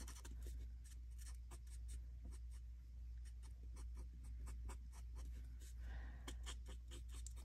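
Alcohol-ink blending marker (Stampin' Blends) dabbing and stroking on cardstock: a run of faint, quick taps and scratches, several a second. The marker is nearly out of ink.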